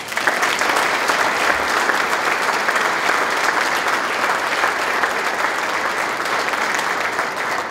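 Audience applauding, a dense, steady clapping from a crowd.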